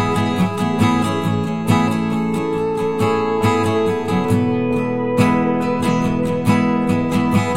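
Background music led by a strummed acoustic guitar, with plucked notes and chords in a steady rhythm.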